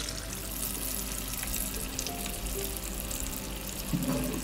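Chicken shami kababs sizzling steadily as they fry in hot oil, with scattered small pops and crackles.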